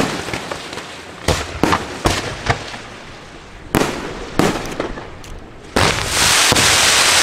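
Fireworks display: aerial shells bursting with about six sharp bangs over the first four and a half seconds. Near the end a loud, continuous hissing rush sets in as a row of ground-level comets fires in a fan of sparks.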